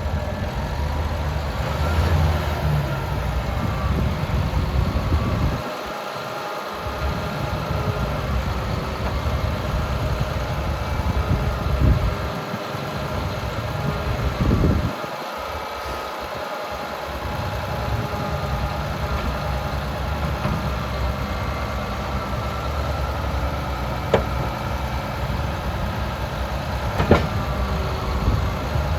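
Komatsu D65PX-17 bulldozer's six-cylinder diesel engine running, its rumble easing off twice and picking up again, with two sharp metallic knocks near the end.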